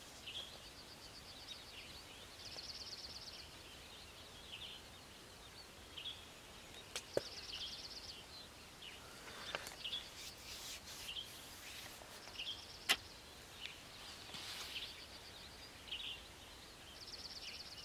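Birds singing: a high, rapid trill repeated every few seconds, with scattered short chirps between, and a few sharp clicks.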